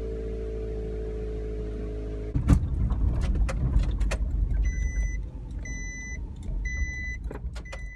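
Small kei camper van pulling away along a bumpy dirt track: a steady hum, then from about two seconds in the rumble of the vehicle moving, with knocks and rattles from the bumps. From about halfway on, a warning beep sounds four times, about once a second.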